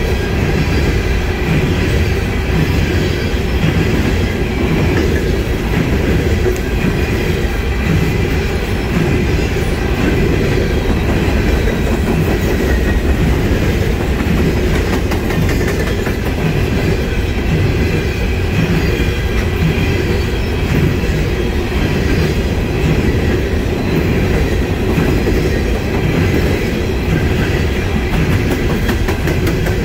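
Freight train of coal hopper cars rolling past at steady speed: a continuous, unbroken rumble of steel wheels on rail, with clicking as the wheels cross rail joints.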